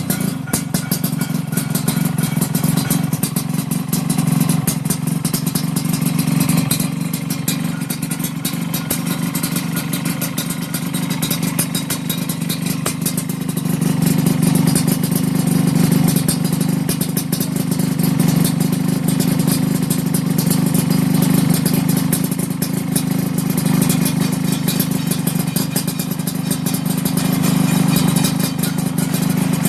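Yamaha RX King single-cylinder two-stroke motorcycle running steadily through an aftermarket expansion-chamber exhaust. The pitch holds level throughout, with a dense crackle over the exhaust note.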